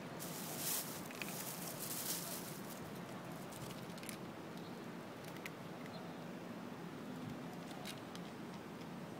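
Two cats chewing and lapping food from plastic trays: a dense run of small sharp clicks in the first few seconds, then scattered clicks, over a steady low hum.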